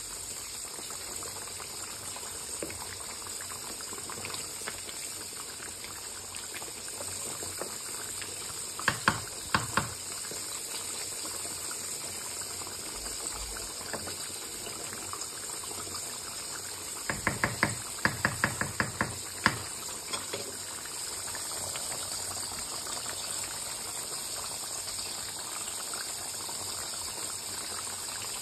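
Beef rendang with potatoes simmering uncovered in a wok, a steady bubbling hiss as the coconut sauce cooks down. A wooden spatula knocks against the pan a few times about nine seconds in, then taps more than once around eighteen seconds.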